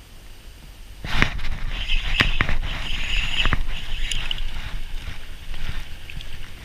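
Nylon rain-jacket sleeve rustling and brushing against a body-worn camera, starting about a second in, with several sharp clicks and knocks from handling the rod and reel.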